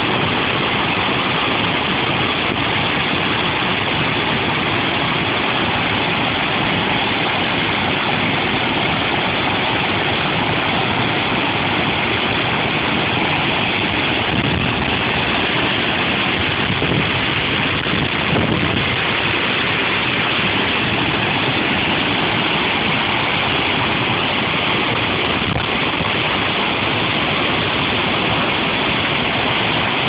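Waterfall over 15 metres high pouring into its plunge pool: a loud, steady rush of falling water.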